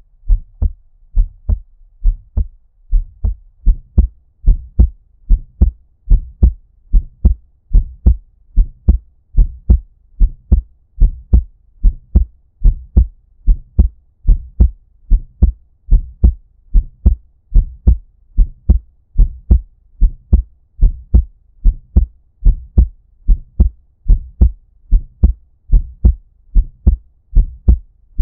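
Human heartbeat at a normal resting rate, muffled as if heard underwater. It beats steadily in paired lub-dub thumps that sit deep in the low end.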